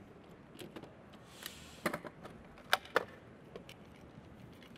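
A spice mill and utensils handled over a food processor bowl during seasoning: a short grinding hiss, then three sharp clicks, the last two in quick succession.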